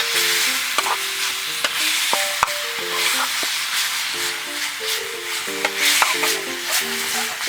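Food sizzling as it is fried and stirred in an iron wok, with sharp clicks now and then. A melody of short notes plays in the background.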